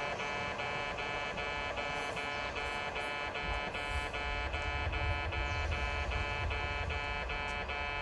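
Electronic level-crossing warning bell at a station's on-platform crossing, ringing steadily about three times a second. A train's low rumble swells under it in the middle as the train pulls away.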